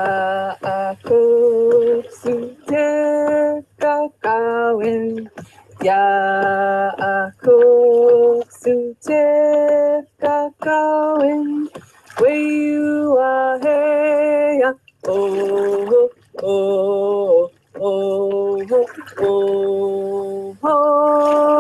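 A woman singing a song to orcas in her native language, with the line 'I love you, orca'. She sings in short phrases of held notes with brief breaks between them, and ends on a long held note.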